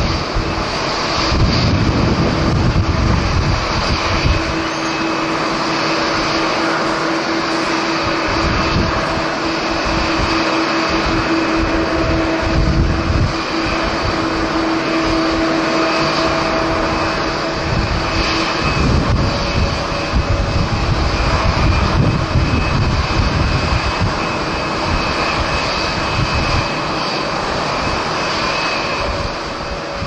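Jet engines of a Boeing 737-800 airliner running steadily at taxi power, a continuous hum with steady whining tones. Gusts of strong wind buffet the microphone with uneven low rumbles throughout.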